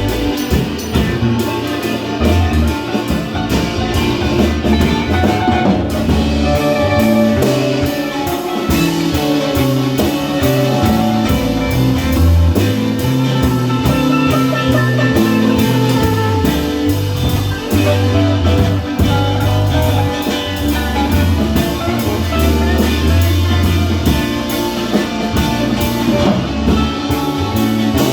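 Rock music with guitar and a drum kit playing a steady beat.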